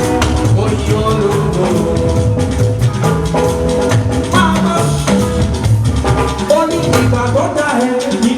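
Upbeat music with steady drumming over a moving bass line.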